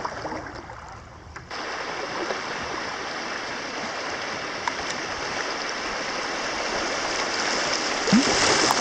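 Rushing water of a shallow river rapid, a steady rush that starts suddenly about a second and a half in and grows a little louder toward the end.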